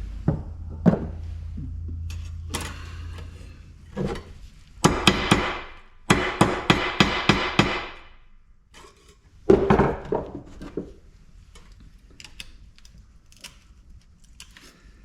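Hammer blows on the metal parts of a large light fixture being taken apart: a few single knocks, then a quick run of ringing strikes, then another short cluster of hits.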